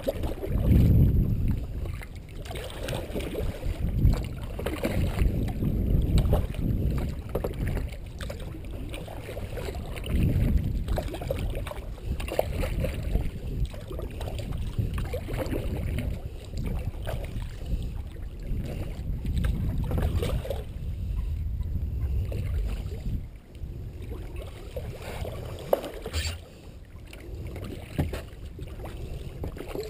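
Sea kayak being paddled with a double-bladed paddle: repeated strokes splashing and swishing through the water. A sharp knock sounds near the end.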